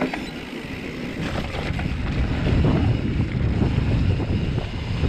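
Wind buffeting the camera microphone and a mountain bike's knobby tyres rumbling over dirt singletrack at speed, with a few short knocks as the bike goes over bumps. The rush swells in the middle.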